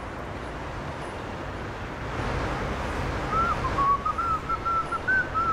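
A man whistling a short tune of clear notes, starting a little past halfway, over the steady low rumble of a car's interior while driving.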